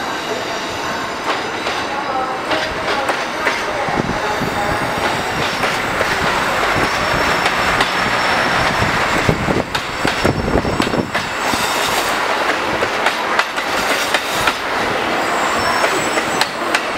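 700 series Shinkansen train on the move: a steady rushing rumble of wheels on rail, with rapid clicking as the wheels cross rail joints, getting somewhat louder partway through.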